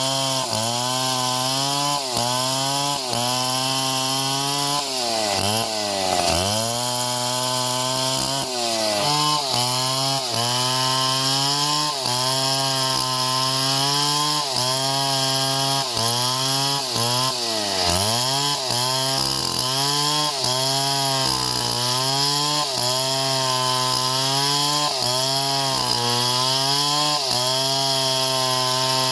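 Chainsaw cutting through wood under load. Its engine pitch sags and recovers about once a second as the chain bites, with two deeper drops about six and eighteen seconds in, over a steady hiss of cutting.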